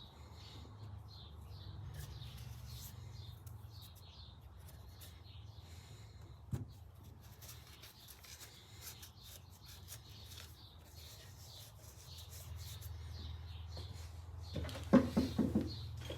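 A low, steady hum with faint high chirps. There is a single sharp click about six and a half seconds in, and a quick run of small clicks and knocks near the end.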